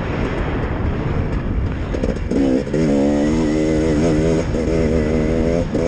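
Dirt bike engine running while riding, rough and noisy at first, then about two seconds in a clear engine note that rises and falls in pitch as the throttle is worked, with short dips.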